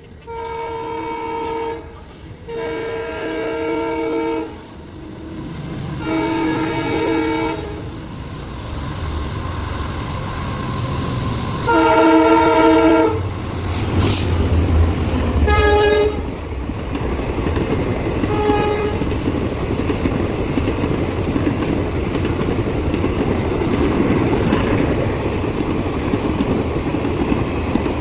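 Twin WDG4 diesel locomotives sounding their multi-tone horn in four long blasts over the first thirteen seconds. A deep rumble follows as the locomotives pass, with two short, fainter horn toots. The train then runs through without stopping, its coaches clattering steadily over the rails.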